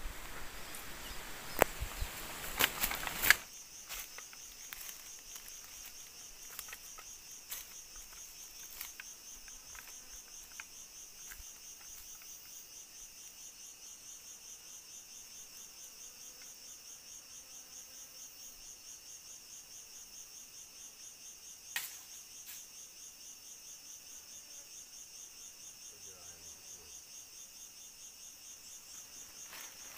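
Steady high-pitched drone of forest insects, pulsing rapidly, after a louder run of clicks that stops abruptly about three seconds in. A single sharp click comes near the middle.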